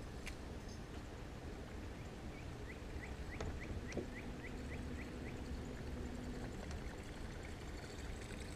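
Steady low wash of water and wind around a boat, with a run of about ten short high chirps, roughly three a second, in the middle, and a few light clicks.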